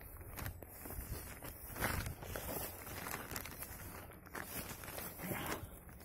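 Footsteps through forest undergrowth: feet brushing and crunching through low plants and leaf litter at a walking pace, in irregular strokes.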